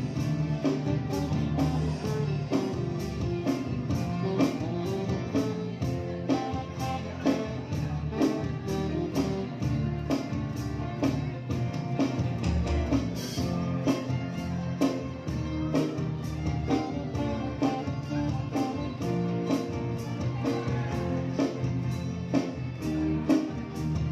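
Live instrumental ensemble playing: violins over guitar, bass, keyboard and electronic drums, with a steady beat of about two strokes a second.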